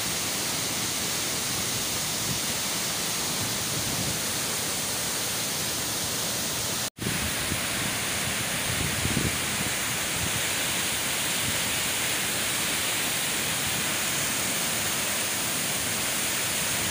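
Tamaraw Falls swollen after a typhoon: a loud, steady rush of falling water. The sound drops out for an instant about seven seconds in.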